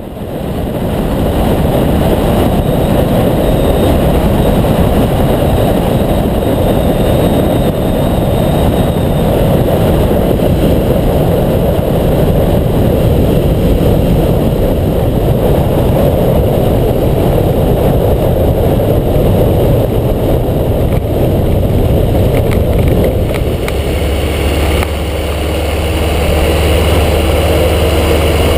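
Flexwing microlight's engine running steadily, mixed with heavy wind rush on the microphone. About 24 s in it settles into a steadier, lower drone, dipping briefly before building again.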